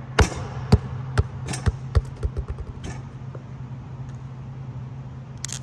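A quick run of sharp knocks or hits, about a dozen in the first three seconds and thinning out, over a steady low hum.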